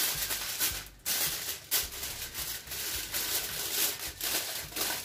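Aluminium foil crinkling and rustling as hands spread it and press it down over a cooking pot, with a short pause about a second in.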